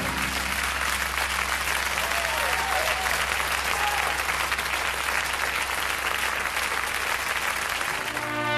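Audience applauding after a song ends. About eight seconds in, trumpets start the next song with a sustained chord.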